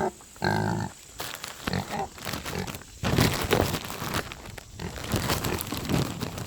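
A farm animal gives a short grunt about half a second in, followed by irregular crackling and crinkling, like a bag of marshmallows being handled while the animals feed.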